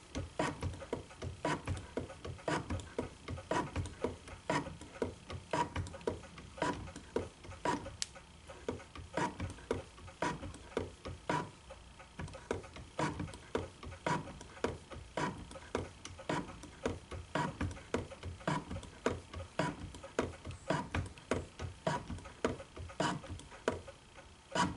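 Shop-built hand shaper taking cutting strokes in a 1018 steel block, the tool worked back and forth by its hand lever to widen a key slot. A regular run of short clicks, a few each second.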